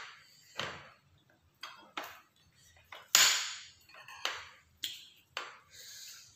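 Spoons and forks clinking against ceramic plates and bowls in a string of short, sharp clinks at uneven intervals, the loudest about three seconds in.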